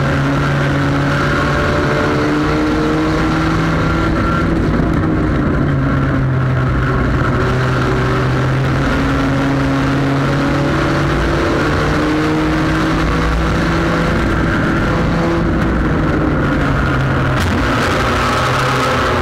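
Sport compact race car's engine running hard under throttle, heard from inside the car, its pitch holding mostly steady with small dips and a shift near the end.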